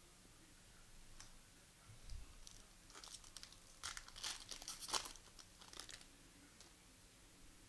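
The foil wrapper of a trading-card pack is torn open and crinkled: a cluster of sharp crackles lasting about three seconds in the middle. A soft low thump comes about two seconds in.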